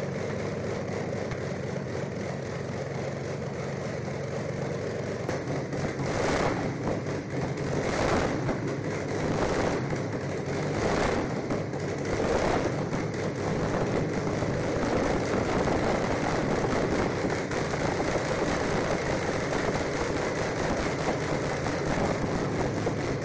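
Large multi-cylinder engine of a vintage car chassis, with short open exhaust stubs, running loudly. It surges several times as the throttle is opened between about six and thirteen seconds in, then runs on steadily.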